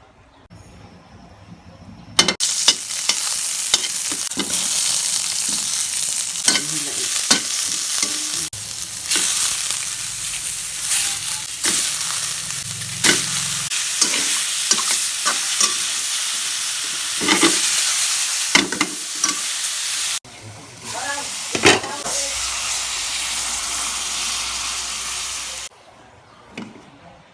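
Food sizzling in hot oil in a pan, with sharp clicks and scrapes of a cooking utensil against the pan. The sizzle starts a couple of seconds in, breaks off briefly, then comes back and stops shortly before the end.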